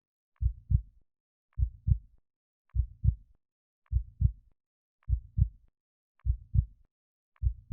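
Heartbeat sound effect: seven steady lub-dub double thumps, about one beat every 1.2 seconds.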